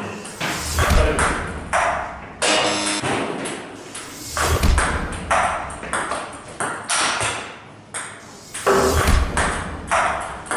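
Table tennis rally: the plastic ball ticks sharply off the rubber paddles and bounces on the table, over and over. Three low thuds come about four seconds apart.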